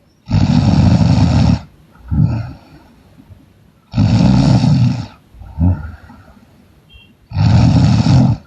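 A woman snoring loudly: three long snores, each a little over a second, come about every three and a half seconds, with a shorter, softer breath sound between each pair.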